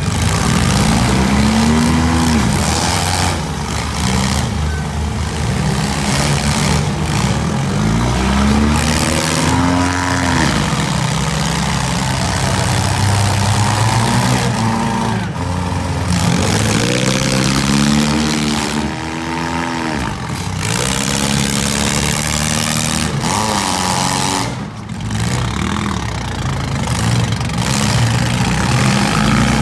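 Several four-cylinder demolition derby cars running hard, their engines revving up and falling back again and again as they shove against one another, with tyres spinning in the dirt.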